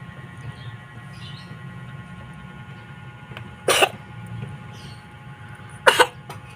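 A cat coughing: two short coughs about two seconds apart, the second a quick double, over a steady low hum.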